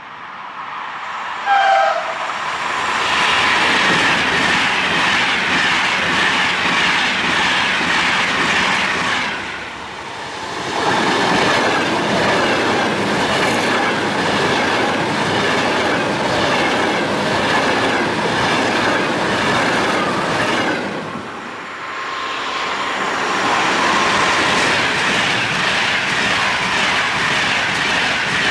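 A Frecciabianca train passing at high speed. There is a short horn blast about two seconds in, then the loud rush of the train and its wheels over the rails. The rush falls away briefly twice and picks up again.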